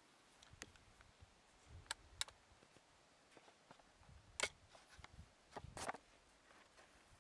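Faint, scattered clicks and taps from handling a CVA Wolf .50 caliber break-action muzzleloader, about five in all, the loudest about four and a half seconds in.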